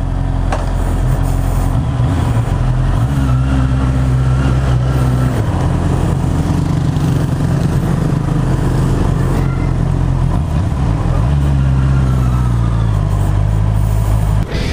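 Honda CB650R's 649 cc inline-four engine running through its stock exhaust, its engine speed stepping up and down several times.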